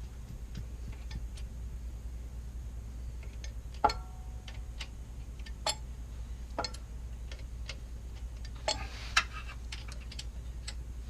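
Scattered, irregular metallic taps and clicks from hand tools working a steel dowel pin into an engine block, over a steady low hum. The loudest is a ringing strike about four seconds in.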